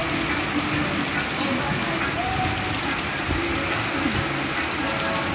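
Torrential rain pouring down in a steady hiss, with water gushing off the roof edge close by.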